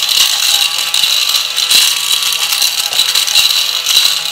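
Small handheld mini desk vacuum running with a steady high-pitched whir as it is swept over cardstock, picking up leftover scraps of cut paper.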